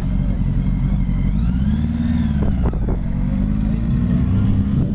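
Motorcycle engines running, with one engine rising and then falling in pitch about a second and a half in.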